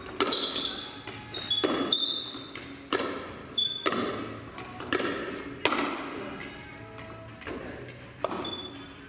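Pickleball rally: the plastic ball popping off paddles and bouncing on the hard floor about once a second, each hit echoing in the hall, with short high squeaks between hits. The hits thin out near the end as the rally stops.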